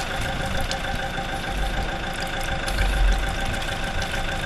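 Heavy equipment engine idling steadily, with a steady whine over it and a low rumble that swells now and then.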